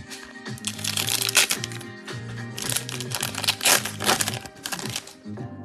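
The foil wrapper of a football trading-card pack being torn open and crinkled by hand, crackling in two spells, about a second in and again through the middle. Background music plays steadily throughout.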